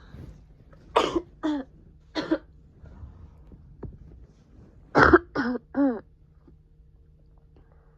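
A person with a cold coughing in two fits: three harsh coughs about a second in, then three more about five seconds in, the last two with some voice in them.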